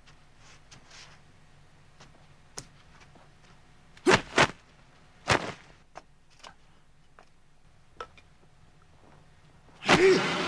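Film fight-scene sound effects: a quiet stretch broken by a few sharp hits and faint clicks, then a sudden loud, noisy burst near the end.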